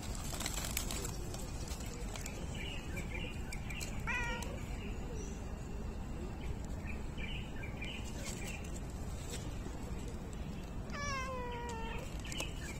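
Calico cat meowing twice while being scratched: a short meow about four seconds in, and a longer meow falling in pitch near the end.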